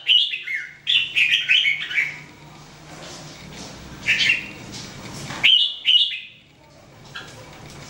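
Red-whiskered bulbul giving short chirping song phrases: a quick run of notes in the first two seconds, another phrase about four seconds in, and two more close together about five and a half seconds in.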